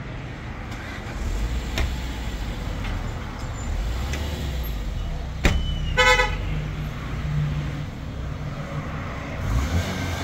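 A vehicle engine rumbling steadily, with one short horn toot about six seconds in.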